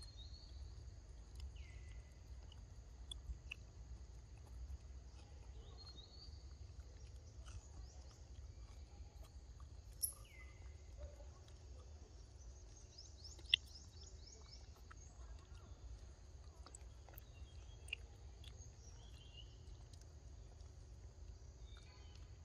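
Forest ambience: a steady high insect drone with scattered short falling bird chirps and a quick trill about thirteen seconds in. A few sharp clicks stand out, the loudest about halfway through.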